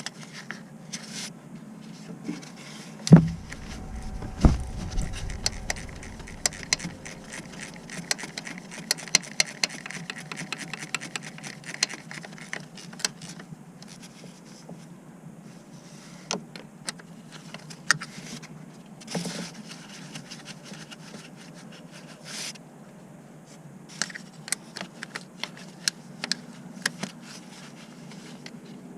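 Hand tools and metal parts being handled during car repair work: scattered clinks and knocks with scraping and rubbing, and one heavy thump about three seconds in.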